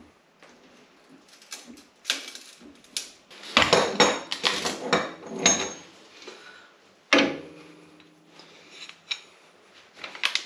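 Metal tools clanking and knocking against a UTV's front coilover shock as its spring preload collar is worked round its notches; a cluster of sharp knocks in the middle, and one knock about seven seconds in that rings briefly.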